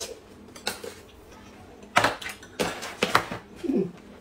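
A metal spoon clinking and knocking against a glass cup and a tin can as instant soup powder is tipped and scooped into the glass. The sharp taps come irregularly, about half a dozen of them, the loudest about two seconds in.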